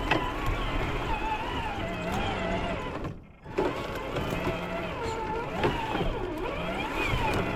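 Traxxas TRX4 G-Wagon RC crawler's electric motor and geared drivetrain whining, the pitch rising and falling with the throttle as it drives over rough ground, and briefly cutting out about three seconds in.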